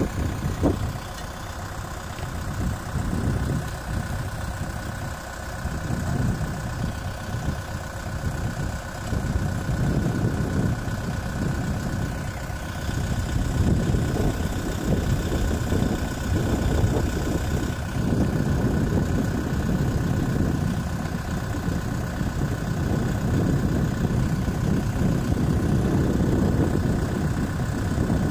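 Kubota M6040SU tractor's diesel engine idling steadily.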